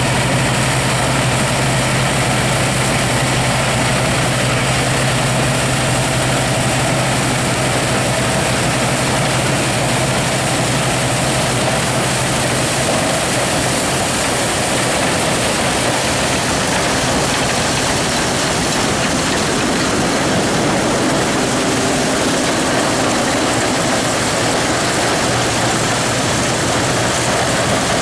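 Massey-Harris Clipper combine running steadily while harvesting wheat: a continuous loud drone of engine and threshing machinery, with a low hum that fades somewhat midway and comes back near the end.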